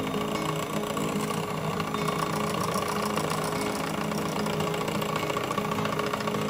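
Electric hand mixer running steadily, its motor giving an even buzzing whine while beating the cake cream.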